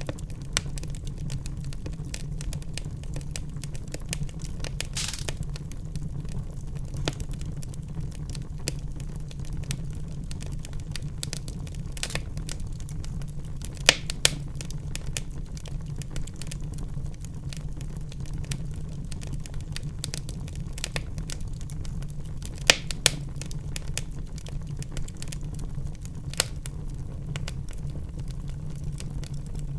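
Wood fire in a fireplace burning with a steady low rumble of flames and irregular sharp crackles and pops, a few louder snaps standing out.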